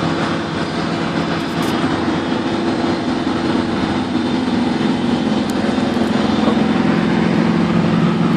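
Steady cabin noise of a moving minibus: engine drone mixed with road rumble, a continuous low hum that grows slightly louder near the end.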